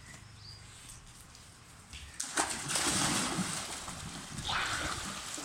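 Water splashing and sloshing as children climb and tumble into an inflatable paddling pool, starting about two seconds in, with a second burst of splashing near the end.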